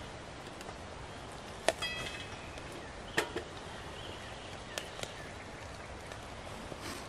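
A handful of sharp clicks and knocks as small sticks are fed into a metal wood-burning camp stove. The loudest comes about a second and a half in and rings briefly like struck metal. A steady faint hiss runs underneath.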